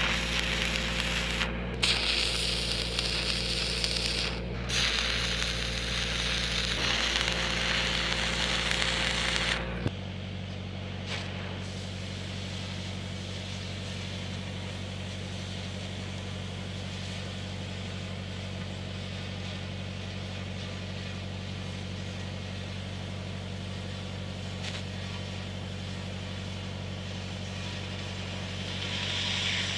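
Stick-welding arc from a 7014 rod crackling and hissing, with a couple of brief breaks, over the steady running of a Lincoln SAE-300 engine-driven welder. About ten seconds in the arc stops and the welder's engine changes note, then runs on steadily. A hiss starts up again near the end.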